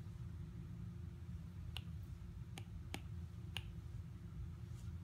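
Plastic stylus tip tapping and clicking on a tablet's glass screen while writing and circling, a handful of sharp separate taps mostly in the second half, over a steady low hum.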